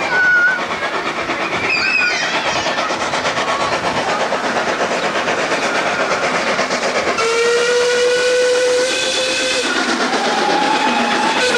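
Steam locomotive running in with its coaches, a steady hiss and clatter of the train. About seven seconds in, its whistle blows one long note for about two and a half seconds. Near the end a second, higher steady whistle tone sounds.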